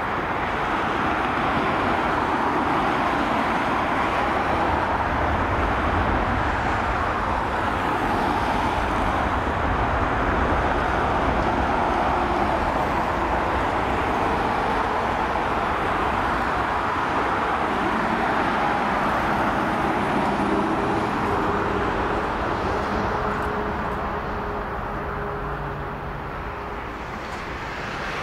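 Boeing 767-300ER's two General Electric CF6-80 turbofans running steadily at takeoff thrust during the takeoff roll. The level eases slightly near the end.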